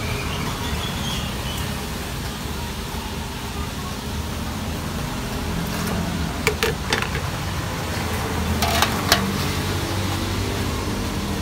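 Steady hum of street traffic, with a few sharp clinks of a spoon and metal strainer against the jugs about six and a half seconds in and again, ringing briefly, about nine seconds in.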